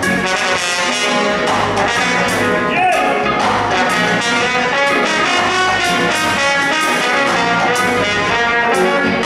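Live band music: a brass horn plays a held, slow solo melody over keyboard and drums.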